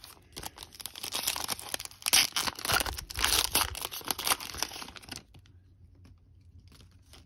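Foil trading-card pack wrapper being torn open and crinkled by hand, a dense crackling that stops about five seconds in. A few faint clicks of cards being handled follow.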